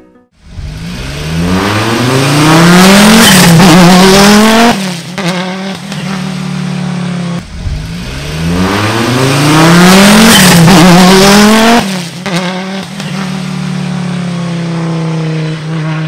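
Race car engine accelerating hard, its pitch climbing in steps through quick upshifts; the same run is heard twice, then the engine holds a steady high note.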